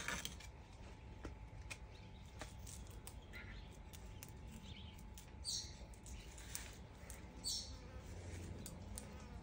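Faint rustling and scraping of soil and carrot foliage as baby carrots are dug with a small hand trowel and pulled out of a garden bed by hand, with scattered small clicks and two short, sharper rustles about five and a half and seven and a half seconds in.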